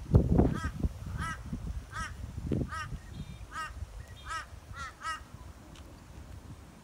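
A crow cawing, a series of about eight short, evenly spaced caws. Wind buffets the microphone with a low rumble, loudest at the start.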